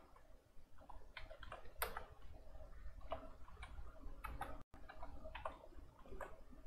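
Computer keyboard typing: faint, irregular keystroke clicks.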